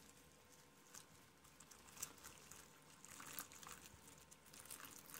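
Faint patter of water poured from a plastic bottle into a foil pouch of freeze-dried chili mac, splashing onto the dry macaroni, a little louder after about three seconds.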